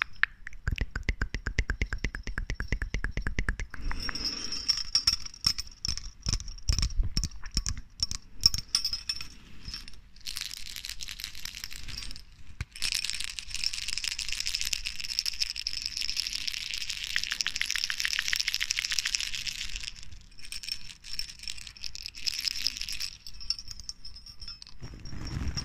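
Small jingle bells on a tinsel-topped stick, shaken and tapped close to the microphone, clinking and jingling with a high ring. It is irregular clinks at first, then a denser stretch of fast jingling in the middle.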